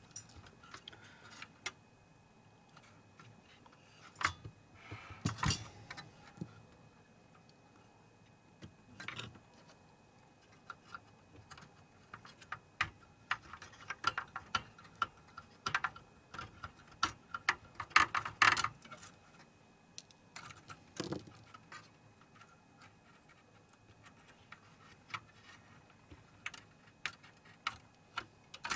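Small metal tools and parts clicking and clinking at irregular intervals, with a busier stretch of clicks and scraping past the middle, as the sensor is taken off a DLP projector's colour wheel motor.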